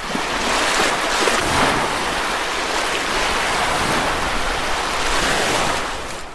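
Steady rushing of ocean water, with no pitch or rhythm, fading away near the end.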